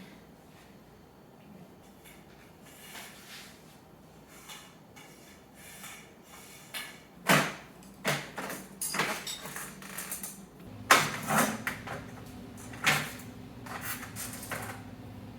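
Clacks, knocks and scrapes of a curtain and curtain rod being handled while the curtain is hung, with several sharp clacks in the second half. A low steady hum comes in about eleven seconds in.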